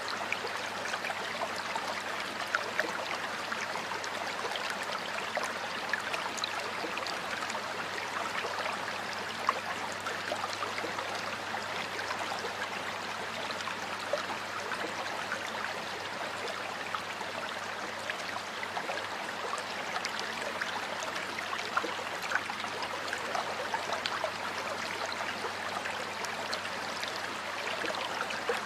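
Stream water flowing and gurgling over rocks: a steady rush with many small splashes.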